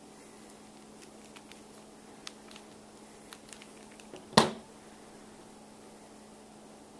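Small steel parts and a little screwdriver from a metal construction toy kit clicking and tapping as the pieces are handled and screwed together, with one louder knock about four and a half seconds in. A faint steady hum runs underneath.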